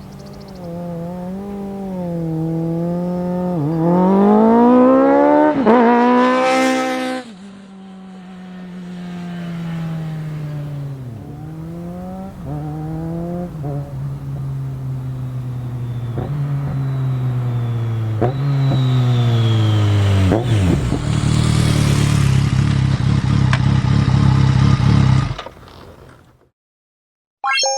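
BMW K1200GT's inline-four engine running through a Delkevic aftermarket exhaust as the motorcycle accelerates hard, its pitch climbing and dropping back at each gear change. It builds to its loudest near the end, then cuts off abruptly.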